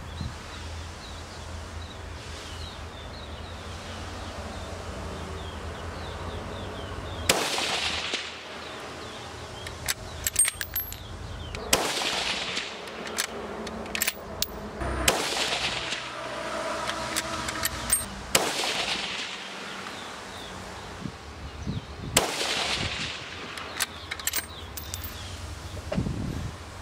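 Five rifle shots from a Howa 1500 in .223 fitted with a four-port muzzle brake, the first about seven seconds in and the rest three to four seconds apart.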